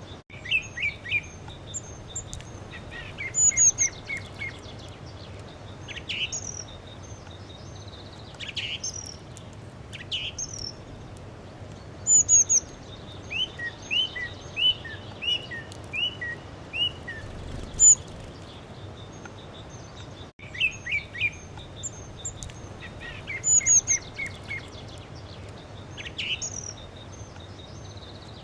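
A songbird singing: bursts of quick chirps and high whistled notes, with a run of evenly spaced notes in the middle, over a steady background hiss.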